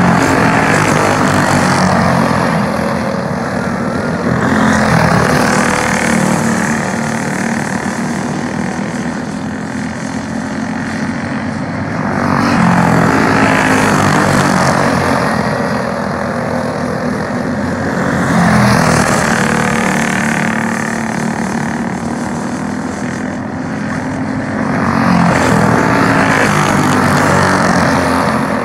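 Several racing go-karts' small engines buzzing as the pack laps. The sound swells loud each time the karts pass close by and fades between passes, about five times, roughly every six seconds.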